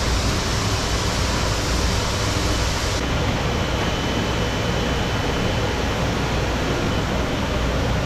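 Steady rushing noise of a wet indoor fish market hall, strongest in the low end. The high hiss lessens about three seconds in, and a faint thin high whine carries on after it.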